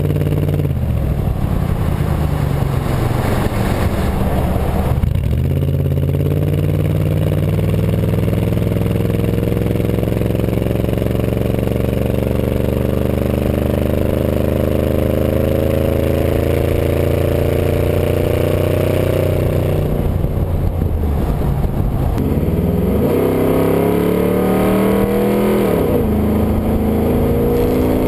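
Ford F-150's 5.4-litre V8 running through true dual 2.25-inch straight pipes with no mufflers, heard right at the tailpipe while driving. The engine note climbs slowly in pitch under acceleration for about fifteen seconds, dips off sharply, rises and falls once more, then climbs again near the end.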